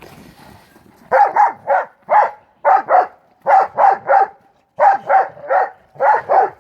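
Pit bull mastiff mix dog barking in a rapid run of short, high-pitched barks, bunched in twos and threes, starting about a second in. It is griping barking over a contested ball, aimed at its brother to make him give it up.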